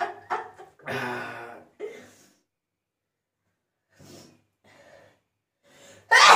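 Gasping and breathing of a person trying to bring on a sneeze. A drawn-out voiced gasp comes about a second in, then a pause with faint breaths, then a sudden loud vocal burst near the end.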